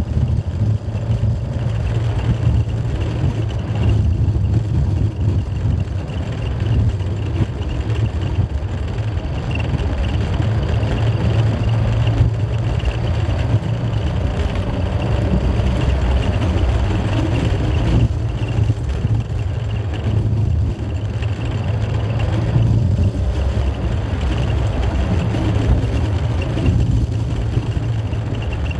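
A motor vehicle driving steadily, a continuous low rumble of engine and road noise with no breaks.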